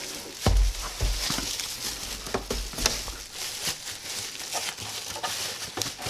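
Plastic bubble wrap crinkling and rustling as it is pulled off an LED grow-light panel, with scattered sharp crackles. Dull thumps about half a second and a second in are the loudest sounds.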